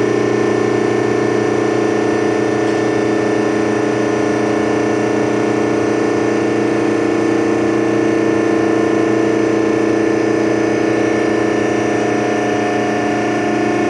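Epco baler's motor and pump running steadily, a constant machine hum with a strong unchanging drone.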